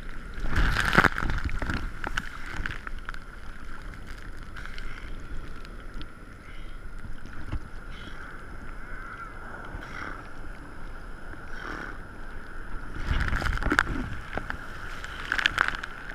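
Ocean water sloshing and splashing around a camera held at the surface in the surf, with louder splashes about a second in and again near the end.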